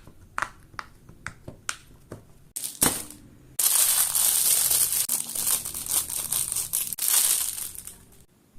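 Pop-it fidget toy bubbles popping in single clicks. About three and a half seconds in, a loud, dense crinkling and crunching begins and runs for around four and a half seconds.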